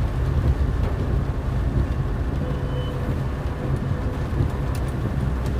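Steady low rumble of a car driving slowly on a wet, waterlogged road, engine and tyres heard from inside the cabin.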